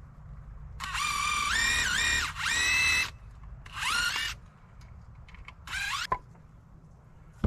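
Power drill running in four short bursts, its motor whine rising and falling in pitch with the trigger, as it backs screws out of the wood.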